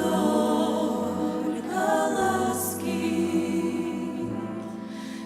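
Choir singing held notes with instrumental accompaniment.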